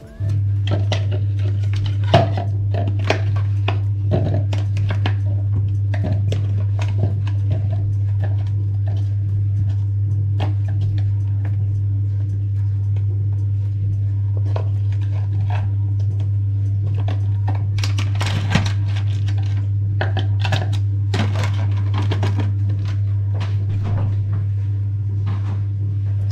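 A steady low electrical hum, with repeated clicks and clatters over it.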